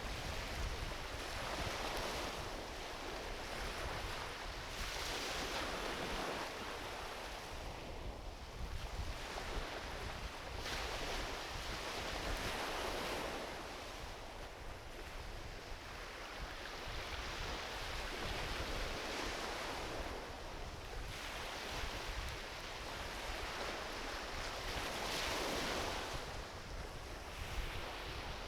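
Small ocean waves washing onto a beach, each swelling and receding over a few seconds, with a few sharp crackles from a driftwood campfire.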